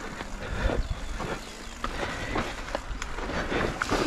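Mountain bike riding over rough trail, clattering with many irregular knocks and rattles over a steady low rumble.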